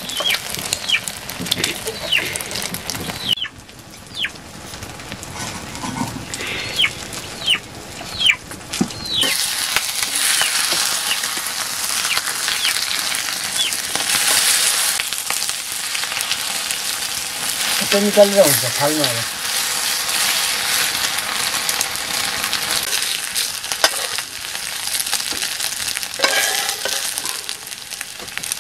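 Beaten egg and red onion frying in a black iron pan, sizzling, with a metal spoon and spatula scraping and clicking against the pan. The sizzle grows much louder about nine seconds in, and a brief falling call cuts through about two-thirds of the way in.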